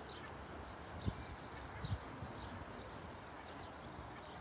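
Small birds chirping and singing over a steady outdoor background rumble, with two brief low thumps about one and two seconds in.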